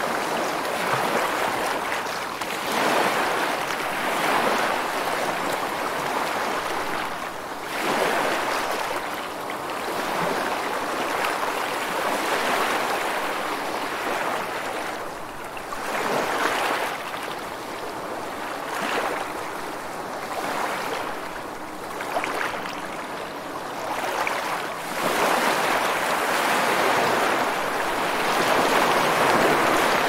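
Ocean surf: waves breaking and washing up the shore in a continuous rush that swells and ebbs every few seconds, growing louder near the end.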